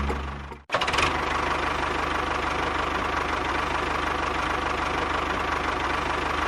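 A small electric motor on a DIY model machine running steadily with a fast rattle, cutting out for a moment just under a second in, then resuming.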